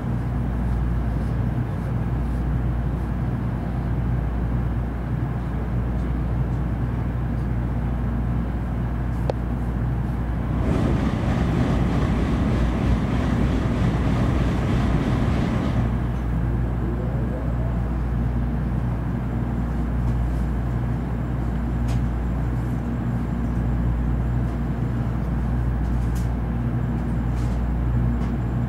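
Steady low hum inside a stopped N700-series Shinkansen car. About ten seconds in, another Shinkansen train rushes past on the neighbouring track, a loud rush of noise lasting about five seconds that dies away gradually.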